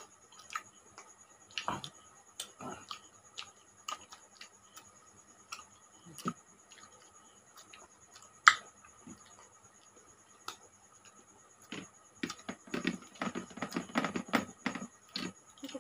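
Eating sounds from hand-eating rice and fish curry: scattered mouth smacks and clicks, one sharp click about eight seconds in, then a dense run of clicks and squelches near the end as rice is mixed by hand in a steel plate. A faint steady high whine runs behind.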